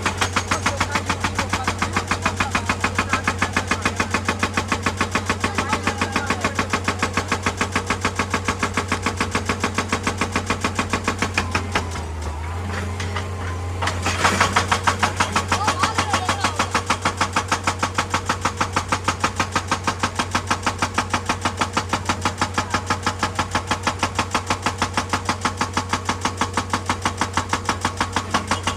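Excavator-mounted hydraulic breaker hammering rock in a fast, even stream of blows over the excavator's steady engine hum. The hammering stops briefly just before the middle and resumes louder.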